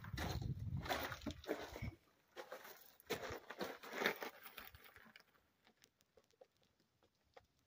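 Crunching and scuffing on loose gravel and rock close to the microphone, in irregular bursts. After about five seconds it settles to a few faint ticks.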